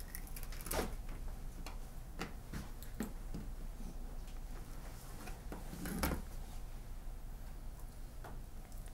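Sparse light clicks and taps against a dish, with a somewhat louder knock about six seconds in, as candied fruit is laid out on the dessert.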